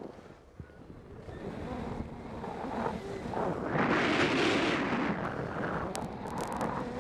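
Skis carving on groomed corduroy snow, mixed with wind noise on the camera microphone. The scraping rush is low at first and swells to its loudest about four seconds in, with a few sharp clicks near the end.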